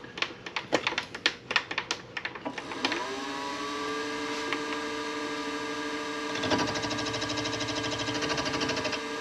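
A quick run of clicks and taps, then the PM-25MV benchtop milling machine's spindle motor spins up to a steady whine about two and a half seconds in. A few seconds later the cutter starts facing the metal, adding a fast, even rasp over a low hum.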